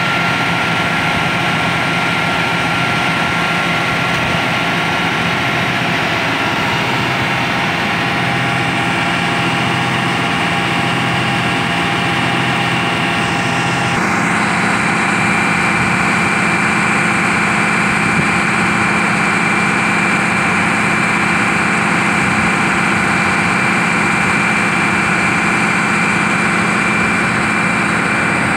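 Large farm tractor's diesel engine idling steadily, a constant hum with a steady whine over it; the tone shifts abruptly about halfway through and then runs on steadily.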